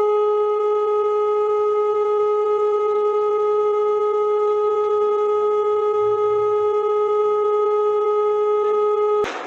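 Mock emergency alert system alarm: a single steady electronic tone, held unchanged for about nine seconds, that stops abruptly with a click near the end.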